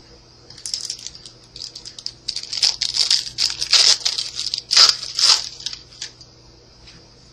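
A foil Yu-Gi-Oh booster pack wrapper being torn open and crinkled, heard as an irregular run of sharp crackling rips lasting about five seconds, loudest in the middle.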